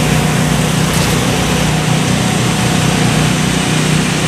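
A motor vehicle's engine running steadily, an even low hum over a broad rushing noise.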